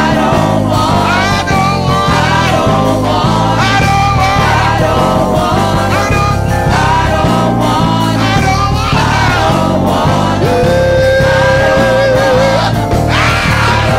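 Gospel praise team singing together into microphones over instrumental accompaniment with a steady bass line. About ten seconds in, one voice holds a long note.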